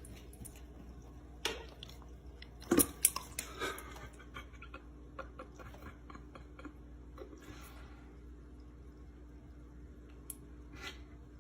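A dog lapping at sparkling water: a scatter of wet clicks and smacks, with a few sharper ones about three seconds in and softer ticks after.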